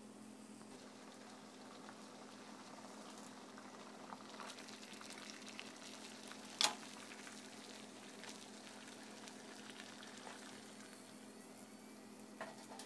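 DIY side-jet alcohol stove made from aluminium drink cans burning as it is left to burn out, a faint steady hiss with light crackling from its flame jets over a low hum. A single sharp knock sounds about six and a half seconds in.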